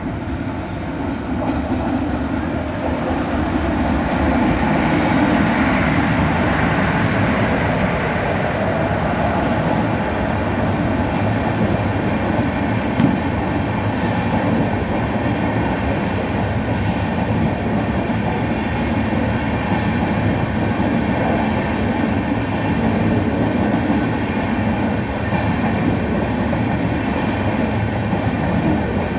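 Indian Railways express passenger train, the Charlapalli–Tiruchanur Express, running past close by with a continuous rumble of wheels and coaches that grows louder over the first few seconds and then holds steady, with a few short clicks.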